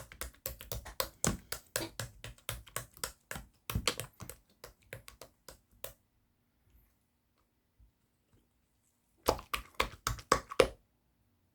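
Slime being squeezed and pressed, making rapid sharp clicks and pops, about four or five a second. A pause of about three seconds, then a shorter run of louder clicks near the end.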